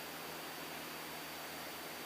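Steady hiss of a cockpit headset and intercom audio feed, with a faint, even low drone from the Cessna 172SP's engine running at cruise power.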